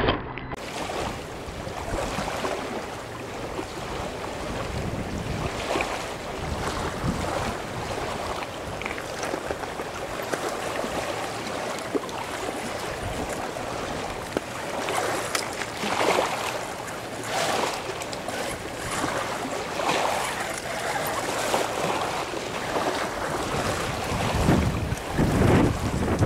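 Wind buffeting the microphone over small waves on a pebble shore. An Axial RC rock crawler grinds over the stones, and it grows louder with gusts of rumble near the end as it comes close.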